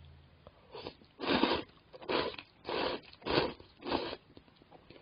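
A person slurping thick, udon-like ramen noodles: a run of about five or six short, airy slurps, roughly one every half second, stopping about four seconds in.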